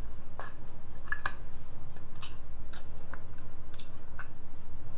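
Light, scattered clicks and scrapes of a steel mixer-grinder jar being handled as a washer is twisted down onto its shaft through a cloth, over a steady low hum.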